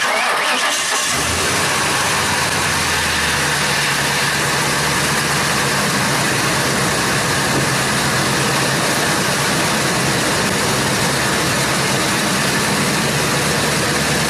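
1997 Ford Expedition's V8 engine starting, catching about a second in, then idling steadily with its newly fitted serpentine belt.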